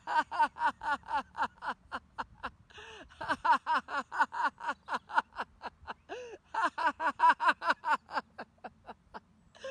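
A woman laughing on purpose in a laughter yoga exercise: rhythmic 'ha-ha-ha' runs of about four or five beats a second. There are three bouts with short breaths between them, and the laughter thins out near the end.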